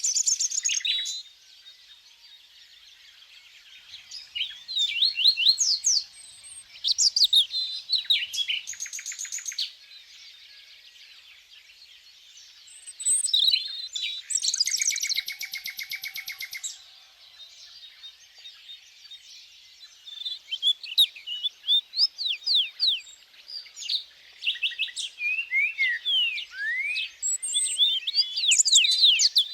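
Small songbirds chirping in bursts of quick falling and rising notes, with quiet gaps between, and a buzzy trill about fourteen seconds in.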